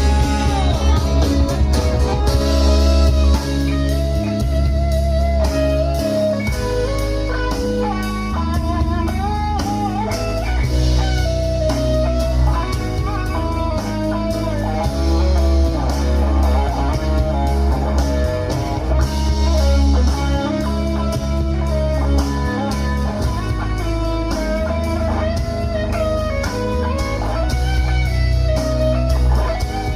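A guitar-led instrumental with bass and a steady beat, played as a sound demo through a DIY portable Bluetooth speaker built with Dayton Audio components.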